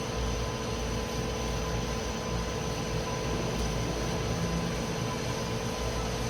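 Mori Seiki Frontier L-II CNC lathe running: a steady machine hum and hiss with a few even tones held over it.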